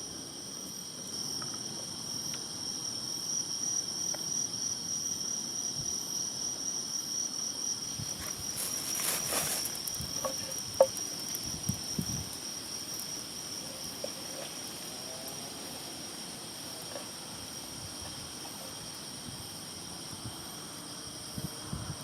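Insects chirping in a steady, high, shrill chorus. About nine seconds in there is a brief rushing hiss, and just before eleven seconds a sharp click.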